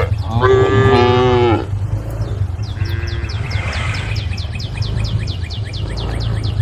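Cow mooing: one long moo lasting over a second near the start, then a much fainter short moo about three seconds in. A steady low hum runs underneath, and from about three seconds in a rapid series of high chirps, about six a second.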